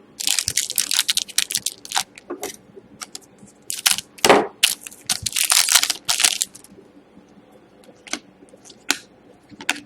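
Hockey trading cards and their packaging being handled at a table: crinkling and clicking in two thick bursts over the first six or so seconds, then a few scattered clicks.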